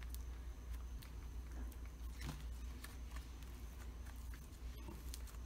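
Fingers pressing and patting slime on a tiled tabletop: scattered faint sticky clicks and light taps over a low steady hum.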